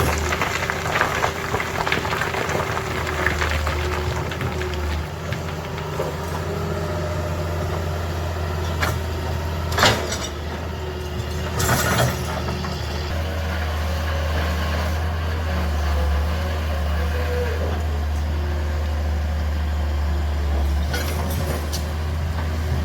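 Heavy diesel machinery engine running steadily with a low, even hum, broken by two short noisy bursts about ten and twelve seconds in.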